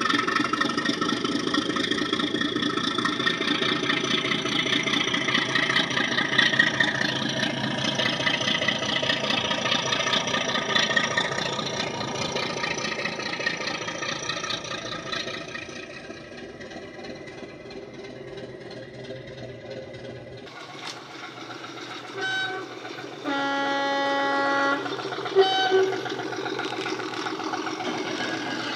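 Sound-fitted model Class 37 diesel's Ruston engine sound, played through the model's EM1 speaker. The engine runs under power with its pitch shifting and grows quieter after about fifteen seconds. After a break the loco's horn sounds: a short toot, a longer blast of about a second and a half, then another short toot.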